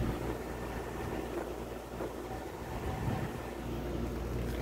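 Toshiba dehumidifier running: a steady low hum with a haze of rushing fan air over it. This is the noise the owner says keeps him from sleeping well.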